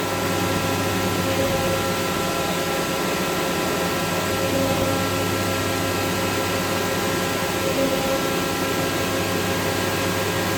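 CNC machine running steadily: an even mechanical noise with a low hum and a steady higher whine.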